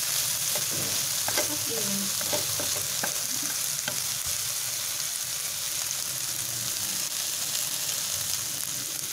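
Pigeon innards, shallots and Vietnamese coriander sizzling in a hot pan as they are stir-fried. Chopsticks click against the pan during the first few seconds, then the sizzling goes on steadily.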